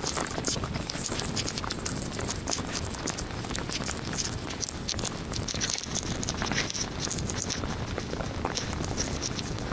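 Heavy monsoon rain pattering on a moving car, a dense, irregular scatter of drops over a steady low rumble.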